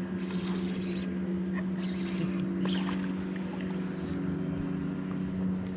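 Boat motor running steadily at low speed, a constant even hum, with a few short bursts of high hiss coming and going over it.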